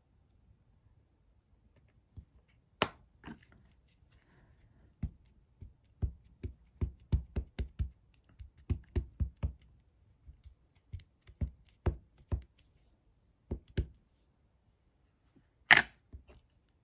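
Ink pad being handled on a craft desk: a run of quick, soft taps in the middle, about three a second, as the pad is dabbed, with scattered single knocks and one sharp click near the end.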